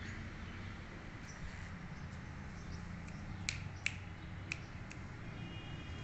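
Four sharp clicks about half a second apart, a little past the middle, over a steady low hum; a faint high whistling tone comes in near the end.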